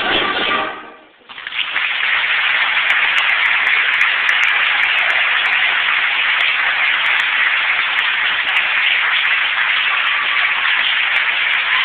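A school concert band's final chord rings out and dies away in the first second, then the audience applauds steadily.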